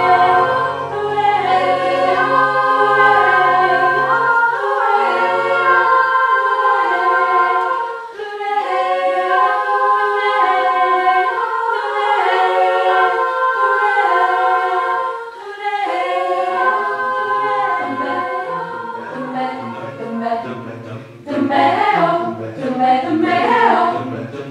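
Mixed a cappella choir singing an improvised vocal painting: sustained chords in close harmony that shift every second or two. The low voices drop out after about five seconds and come back near the end, where the singing turns choppy and rhythmic.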